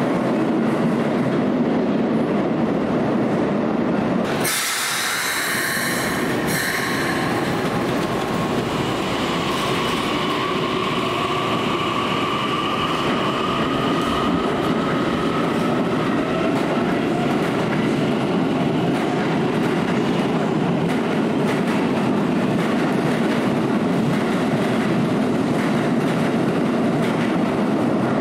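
Keikyu commuter trains running through an underground station platform: steady wheel-on-rail and running noise, broken by a cut about four seconds in, then a Keikyu 1000-series train pulling out with a high whine that rises slightly as it gathers speed.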